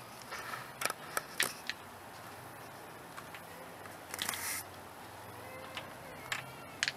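Light metal clicks and taps as hydraulic roller lifters are pulled out of the lifter bores of a GM 3800 V6 block, with a short scrape about four seconds in.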